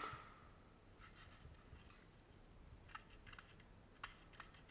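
Near silence with faint, scattered clicks and taps in small clusters, and a brief soft knock at the very start.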